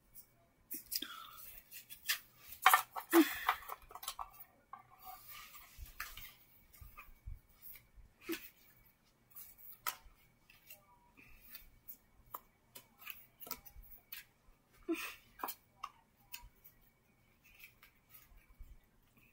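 Trading cards and paper being handled and sorted on a carpet: irregular light clicks, taps and short rustles, busiest about three seconds in.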